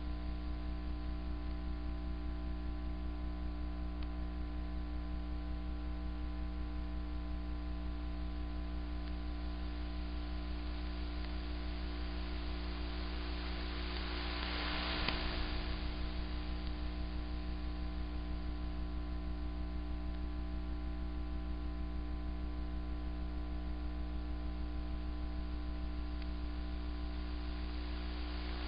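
Shortwave receiver tuned in AM to a numbers station's carrier with no voice on it: a steady hum with many overtones over a hiss of static, swelling briefly about halfway.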